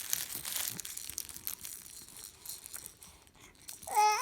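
Crinkling and crackling of a crinkly object being handled for about three seconds. Near the end a baby's voice starts up.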